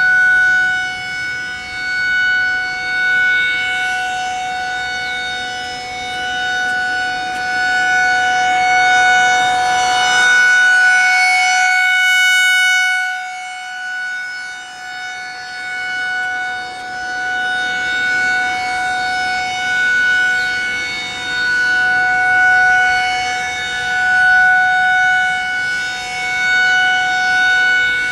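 Federal Signal 2001-SRN rotating outdoor warning siren sounding a steady single tone during a monthly test. The pitch holds constant while the loudness swells and fades as the horn turns.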